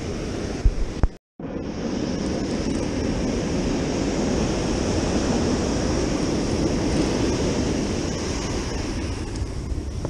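Ocean surf breaking and washing up the beach, with wind buffeting the microphone. Two sharp knocks just before a second in, then the sound cuts out for a moment.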